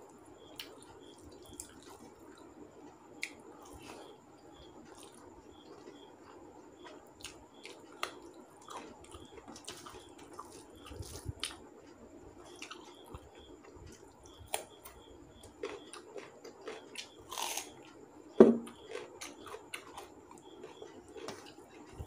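A person eating rice and curry by hand from a steel plate: soft squelches and clicks from fingers working the food, and chewing. One louder sharp sound comes about eighteen seconds in.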